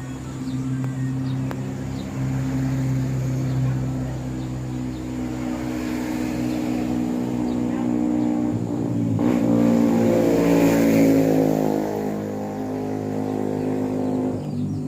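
A motor vehicle engine running steadily, its pitch shifting up and down around the middle as it speeds up. Faint high chirps are heard in the first few seconds.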